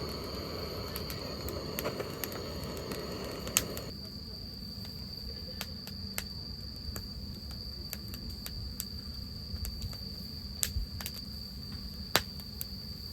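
A cricket trilling steadily and high, with scattered sharp clicks over a low background rumble. A soft hiss in the first few seconds stops about four seconds in.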